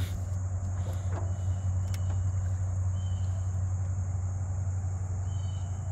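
A steady low motor hum, with a thin high steady insect drone above it and a few short faint chirps.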